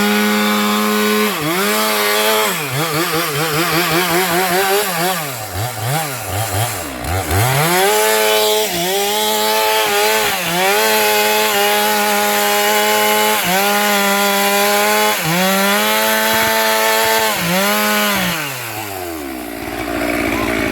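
Stihl MS 462 two-stroke chainsaw at full throttle cutting sengon branches, its pitch dipping again and again as the chain bites into the wood. About 19 seconds in, the revs fall away to idle.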